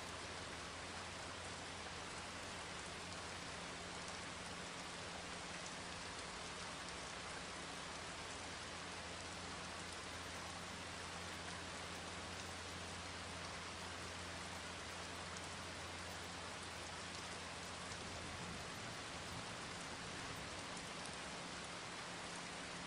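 Steady rain: an even hiss of falling rain with faint scattered drop ticks, over a low hum that drops out about eighteen seconds in.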